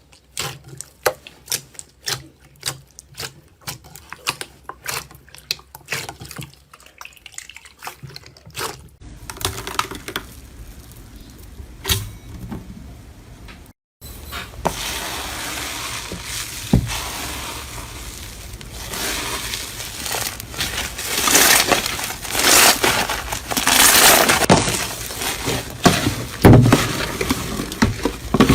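Crunchy slime being pressed and squeezed by hand, giving sharp separate crackles at first. After a cut it becomes a denser, louder run of crunching and squishing.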